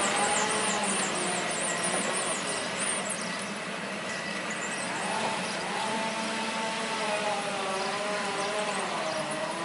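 Translohr rubber-tyred tram running, with steady rolling noise. From about five seconds in, several whining tones rise and fall in pitch.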